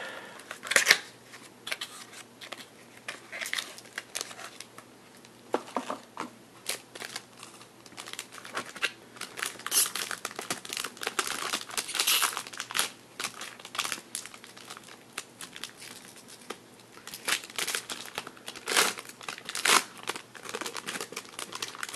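Foil trading-card pack wrapper crinkling and tearing as it is peeled open by hand, in irregular crackles.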